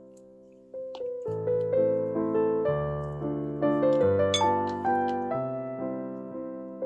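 Background piano music: a gentle run of notes and chords that starts up again about a second in, after a fading held note.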